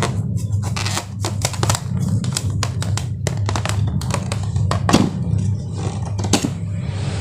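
Slime being handled and squished: an irregular run of small sticky clicks and crackles over a steady low hum.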